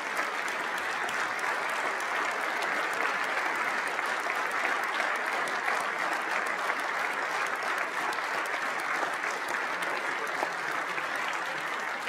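Sustained applause from a legislative chamber audience: a large crowd clapping steadily, some of it as a standing ovation, fading after about twelve seconds.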